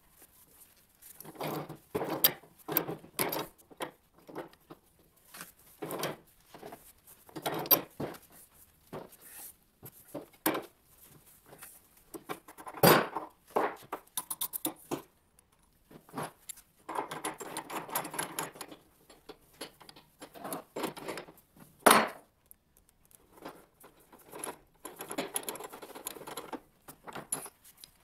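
Metal hand-tool work on a steel pipe clamped in a bench pipe vise: irregular clinks and knocks of steel on steel, with a few stretches of rasping scraping about seventeen and twenty-five seconds in.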